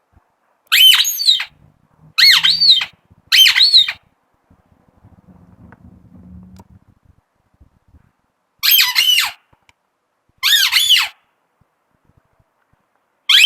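Squeaky vegetable-shaped rubber dog chew toy being squeezed, giving short high-pitched squeaks that rise and fall in pitch: three in quick succession, then after a pause two more and another at the very end.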